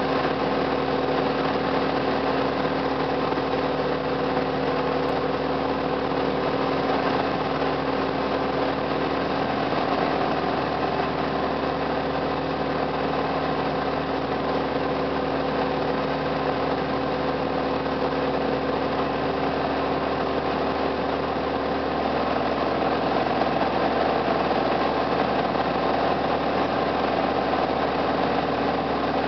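Single-engine piston airplane's engine and propeller heard from inside the cockpit, running with a steady drone on the landing approach, growing slightly louder a little past two-thirds of the way in.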